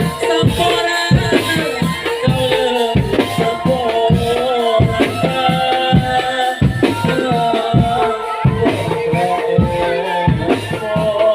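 Drum band music accompanying a can macanan tiger dance: drums beating a steady rhythm with rattling shakers under a melodic line that wavers in pitch.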